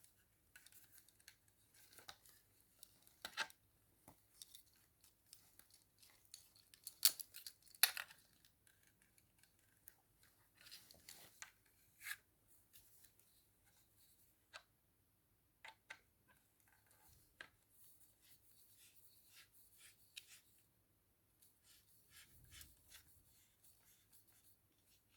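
Scattered sharp clicks and snips with light rustling, as small parts and packaging are handled and fitted together. A few snaps stand out louder than the rest in the first half.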